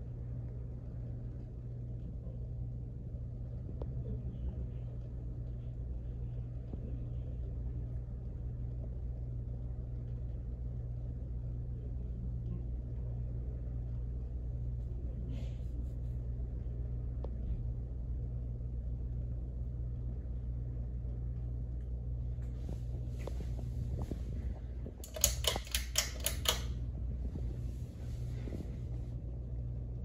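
Small three-blade ceiling fan running steadily with a low motor hum. About 25 seconds in, a brief cluster of loud, sharp clicks stands out over the hum.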